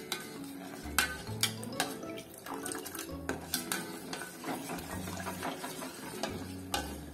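Steel spoon clinking and scraping irregularly against the sides of a stainless-steel container while thick ragi (finger millet) milk is stirred, over background music.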